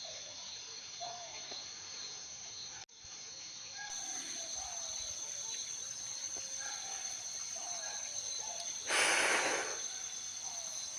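Night insects chirring in steady high-pitched tones, with short falling calls from some other animal scattered through. A loud rustling hiss breaks in about nine seconds in.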